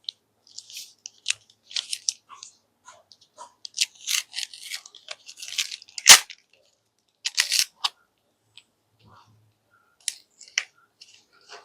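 Plastic candy wrappers being handled and unwrapped: crinkling and rustling in short, irregular spurts, with one sharp snap about six seconds in.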